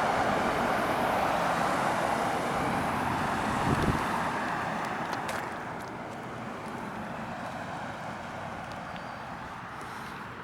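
A car driving along a town street: steady tyre and road noise with engine hum, easing off and getting quieter about halfway through. A low thump comes about four seconds in.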